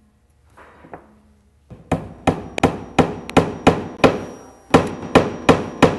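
Small hammer tapping a nail, held in pliers, into a hardwood wallpaper printing block to repair a broken pin dot. A soft scrape about a second in, then a quick run of sharp taps, about three a second, some in close pairs.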